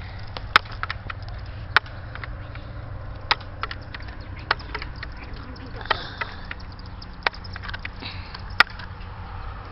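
Multi-pump air rifle being pumped. Each pump stroke gives a sharp click, about seven of them roughly every second and a half, with fainter ticking and handling noise between.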